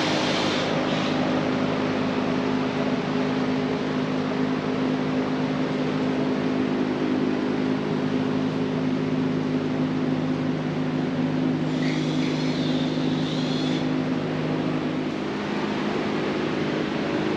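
A steady low mechanical hum with several even tones, running throughout. A brief higher whine comes in about twelve seconds in and stops about two seconds later.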